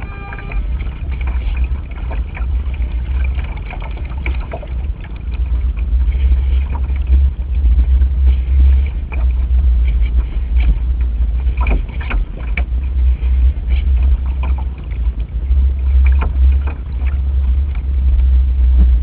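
Gusty wind buffeting the microphone of a camera mounted on a radio-controlled sailing yacht: a heavy low rumble that swells and fades with the gusts, with scattered sharp clicks from the boat and rig. A short pitched tone sounds in the first half-second.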